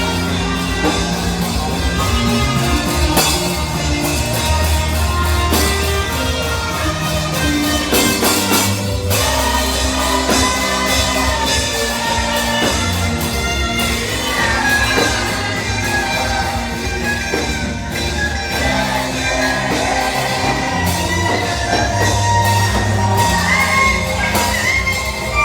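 Live worship music played loud in a large hall: a band with a steady bass line and a lead melody that slides and bends in pitch, likely saxophone, over voices singing, with shouts and whoops from the congregation.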